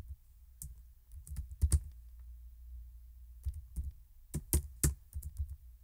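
Typing on a computer keyboard: a few scattered keystrokes, a pause of about a second and a half, then a quick run of keystrokes.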